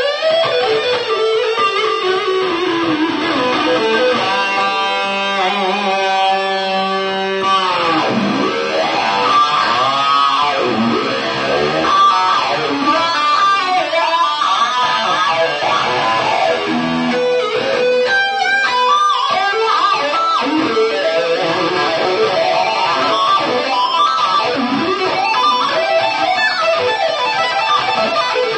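Electric guitar played through a pedalboard of effects pedals, footswitches pressed by foot along the way; the notes bend and glide up and down in pitch.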